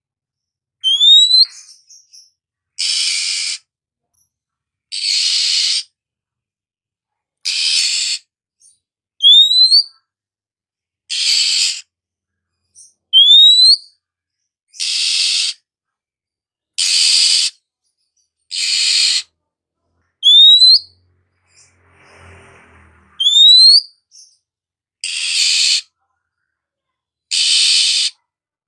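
Oriental magpie-robin (kacer) calling: short, sharply rising whistled notes alternating with harsh, rasping calls, one note about every two seconds.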